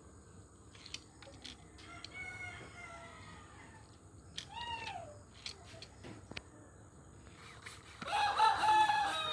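Chickens calling, ending in a loud rooster crow that starts about eight seconds in and lasts over a second. Fainter calls come earlier, one about two seconds in and a short falling one around four and a half seconds, with scattered sharp clicks between them.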